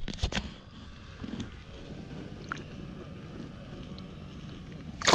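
Light water and wind noise as a largemouth bass is held in the water beside the boat for release, with a few small splashes at the start. About five seconds in comes a sudden loud splash as the fish kicks free.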